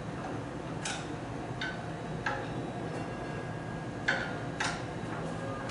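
About six sharp, irregularly spaced clicks of a screwdriver working a screw loose on a heat press machine.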